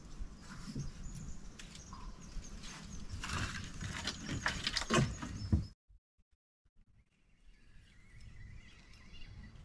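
Clicks and rattling of fishing tackle being handled in an aluminium boat, loudest about five seconds in. The sound cuts off abruptly a little past halfway, and after about a second of silence only faint outdoor sound returns.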